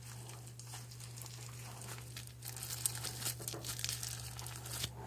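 Slime being squished and stretched in the hands, giving soft crackling and popping clicks that get busier about halfway through. A steady low hum runs underneath.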